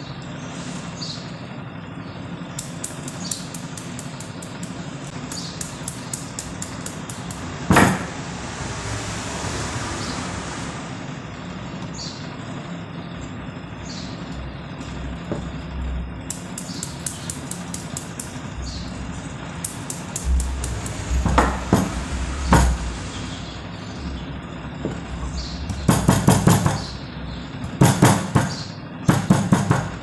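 A small mallet tapping on the copper coil end turns of a washing-machine motor stator in quick runs of light blows, with one heavier knock about eight seconds in, to press down and shape the newly fitted windings.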